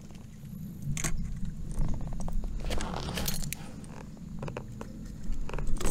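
Metal clinks and rattles of a buzzbait's wire frame, blade and hooks as a small northern pike is unhooked by hand beside a kayak, in scattered bursts over a low, steady rumble.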